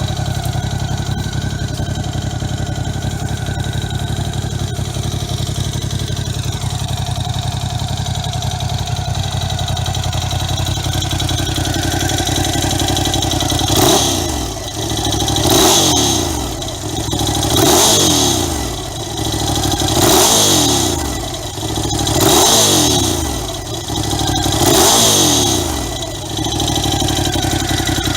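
Ducati Scrambler 1100 Sport's air-cooled L-twin engine idling steadily. About halfway in it is blipped six times in a row, each rev rising and falling back, then it settles to idle again.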